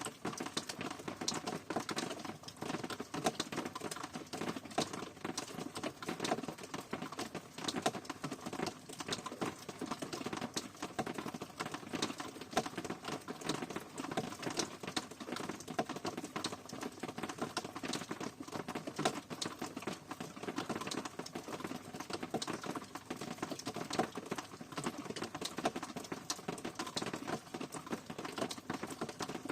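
Steady rain pattering, with many separate drop hits close by over a continuous hiss.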